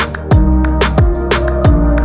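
Background music with a steady beat: kick drum and hi-hats over sustained melodic tones.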